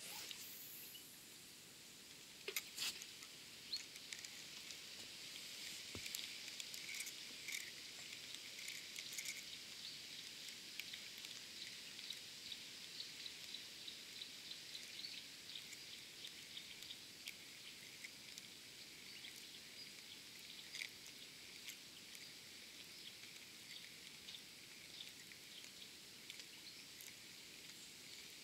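Faint riverbank ambience: a steady high-pitched hiss full of small ticks and chirps, with a few sharp clicks about two and a half to three seconds in.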